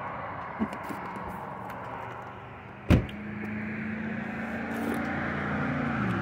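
Road traffic passing on the highway: a steady rushing hum, with one vehicle's pitch dropping near the end as it goes by. A single sharp knock about three seconds in.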